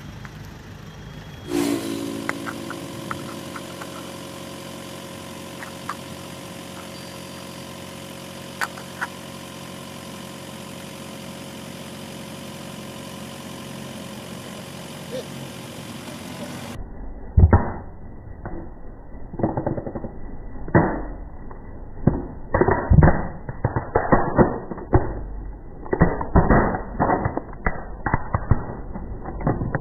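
A car engine idles steadily, with a few faint clicks. About halfway through comes a run of sharp, irregular cracks and snaps: plastic funnels breaking under a car tyre.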